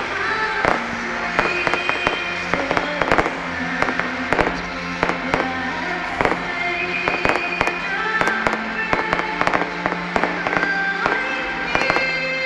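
Fireworks display: a steady run of bangs, pops and crackles as shells burst, with music playing along.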